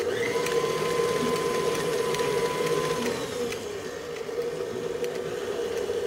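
KitchenAid tilt-head stand mixer running steadily, its flat beater churning a dry crumb topping in a stainless steel bowl. A thin steady whine rides on the motor for a couple of seconds near the start.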